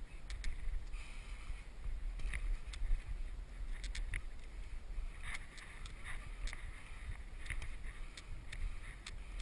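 Wind rumbling on the microphone, with irregular crunches and scrapes of footsteps on loose rock and scree during a climb up a rocky gully.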